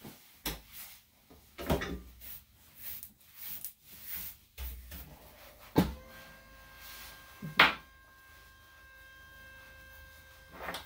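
A hand brush sweeping loose dog hair off a laminate grooming table in a run of short, uneven strokes, with bumps and knocks of things set down on the table, the sharpest a little past the middle. A faint steady hum comes in about six seconds in.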